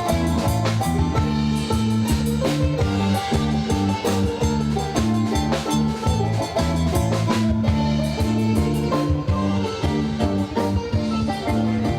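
Music with guitar, bass and a drum kit keeping a steady beat.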